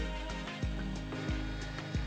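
Background music with a steady beat, about three beats every two seconds.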